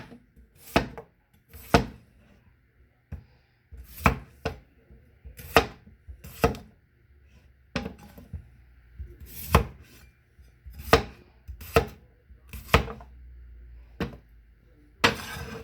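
Kitchen knife chopping through Yukon Gold potatoes onto a cutting board: about ten sharp chops at uneven intervals. A longer rustling noise comes near the end.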